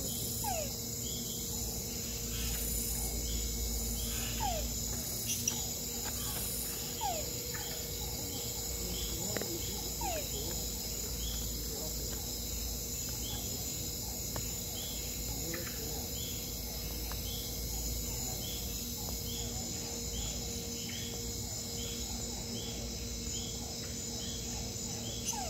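Night rainforest insect chorus: crickets and other insects trilling steadily, with a chirp repeating about once a second. Short falling calls sound every few seconds.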